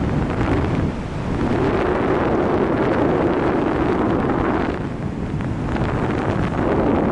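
Wind rushing over the microphone in flight, a loud, deep buffeting rush that swells and dips briefly a couple of times.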